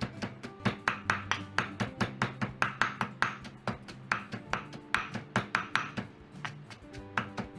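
Stone pestle pounding garlic and chillies in a stone mortar: steady repeated strikes, about three or four a second, over background music.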